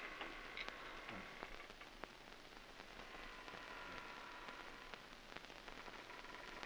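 Quiet hiss and scattered crackle of an old optical film soundtrack, with faint steady high tones underneath.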